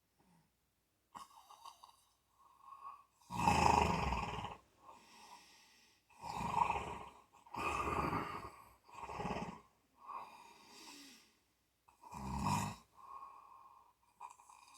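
Snoring: a run of snores of uneven strength, about four strong ones with weaker breaths between them, each about a second long.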